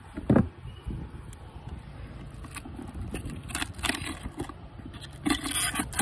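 A cardboard shipping box is handled on a wooden table, with a thump about a third of a second in. Then come short scraping rasps as the box's perforated zip tear strip is ripped open, with the longest and loudest rip near the end.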